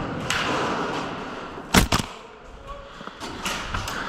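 Rustling noise, then two sharp knocks a quarter second apart, the first the loudest sound here, followed by a few fainter ticks.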